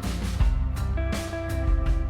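Background music: guitar-led rock with a steady drum beat and bass.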